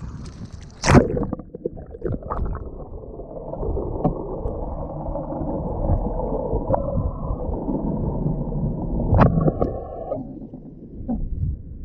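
Muffled underwater water noise picked up through a GoPro's waterproof housing: churning and gurgling, with a sharp knock about a second in and a brief tonal burst near the end.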